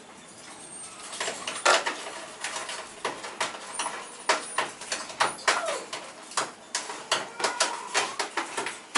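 Irregular clicks and knocks of a puppy being handled close to the microphone, coming thicker after the first few seconds, with a few faint short whines from the puppy.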